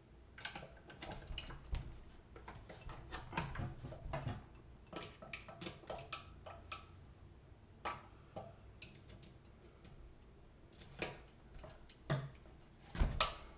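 Irregular small metallic clicks, taps and scrapes of a hand tool prying and knocking at the governor's retaining ring inside the open crankcase of a 6.5 hp Honda-clone engine, with a few louder knocks near the end.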